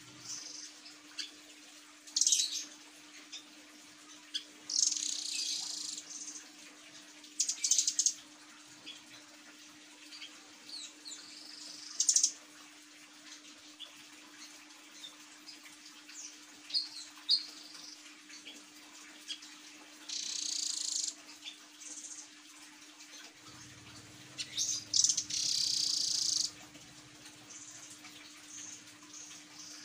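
Caged nuthatch giving short bursts of high trilled calls, about six spread through, each lasting up to a second and a half. A faint steady low hum lies underneath.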